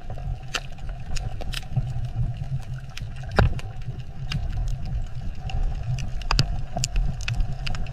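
Underwater reef ambience picked up by a submerged camera: a steady low rumble with scattered sharp clicks, a few each second.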